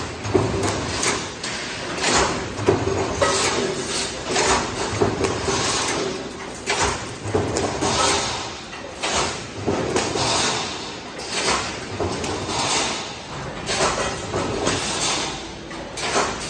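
Steel wire mesh welding machine running, with a burst of noise about once a second as it cycles.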